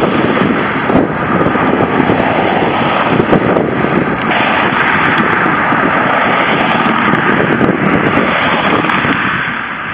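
Jet engines of an Aer Lingus Airbus A330-202 at takeoff power on its takeoff run: a loud, steady roar that eases off slightly near the end.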